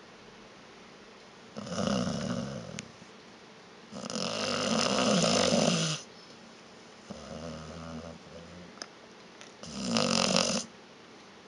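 Labrador retriever snoring: four snores a few seconds apart, the second the longest and the third quieter.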